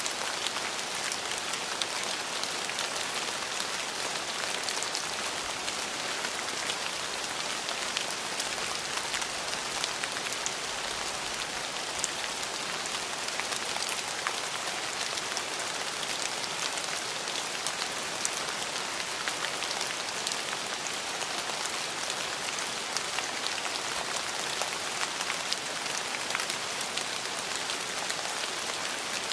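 Steady rain falling, an even hiss scattered with many small drop ticks.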